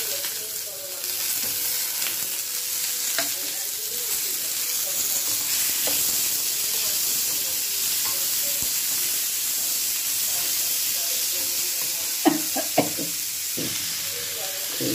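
Chopped tomatoes, green chillies and onion sizzling in hot oil in a pan, a steady frying hiss, with a few knocks from stirring, mostly near the end.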